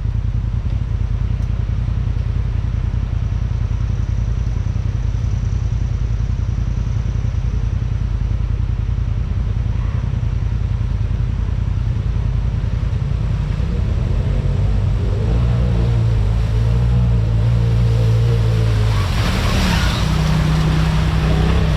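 Off-road vehicle engine running with a steady low rumble, growing louder and more tonal about two-thirds of the way in, with a brief rushing noise swelling near the end.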